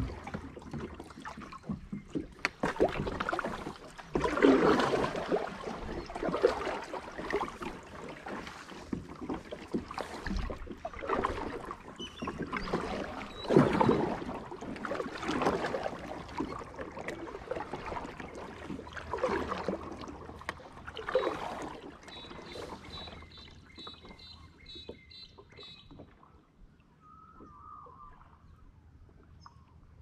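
Kayak paddle strokes: the blades dip and pull through calm river water with splashes and drips, about one stroke every one and a half to two seconds, then ease off after about twenty seconds. Near the end a bird gives a quick run of repeated high notes.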